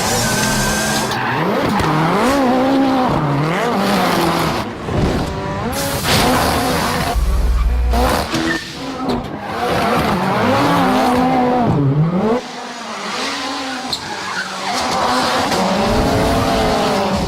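Ford Fiesta rally car driven hard, its engine revving up and down over and over, with tyres skidding and squealing.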